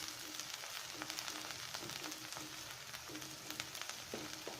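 Chopped onion, garlic and green chilli sizzling as they sauté in hot oil in a pan: a steady hiss with frequent small crackles.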